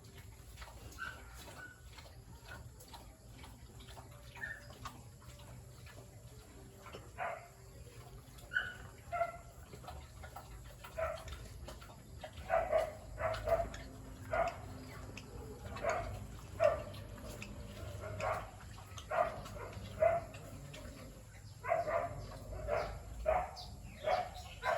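Short animal calls repeating, a few scattered at first, then coming quickly one after another through the second half.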